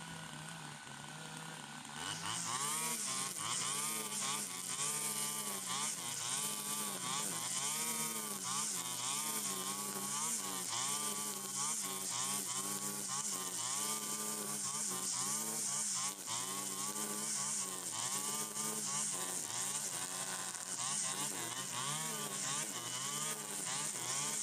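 Stihl FS 120 brush cutter's two-stroke engine idling, then throttled up about two seconds in and cutting grass, its pitch dipping and rising in a steady rhythm as the cutting head swings through the tall grass.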